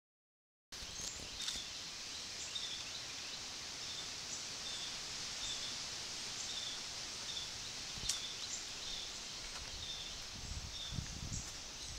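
Outdoor ambience: a short high chirp repeats about once a second over a steady hiss, after a moment of dead silence at the start. There are a few faint low bumps near the end.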